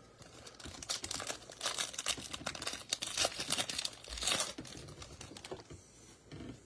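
A foil trading-card pack being torn open: a run of crackling, crinkling wrapper sounds, with a louder tear about four seconds in, then quieter rustling as the cards are handled.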